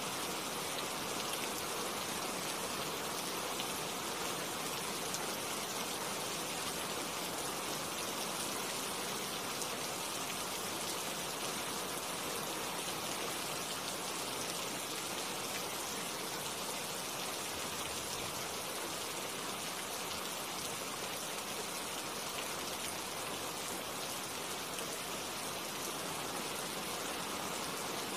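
Steady rain falling on tree leaves: an even hiss of drops pattering on foliage.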